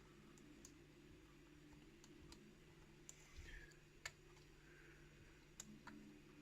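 Faint, sparse clicks of a lock pick and tension wrench working the pins in the core of a challenge lock, a handful of single ticks spread irregularly over several seconds, over a faint steady low hum.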